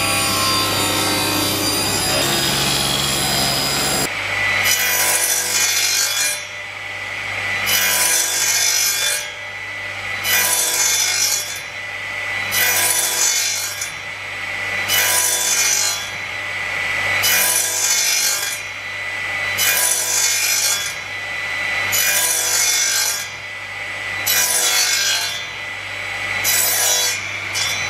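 A table saw runs through a pine batten for a few seconds. Then an overhead crosscut saw makes about sixteen quick passes through pine, one every second and a half or so, nibbling out a notch, with the saw motor humming steadily underneath.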